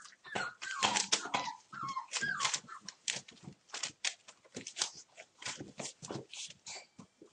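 Month-old Entlebucher mountain dog puppies playing: a few short, wavering high whines and yips in the first couple of seconds, over a steady patter of clicks and scuffles that runs on after them.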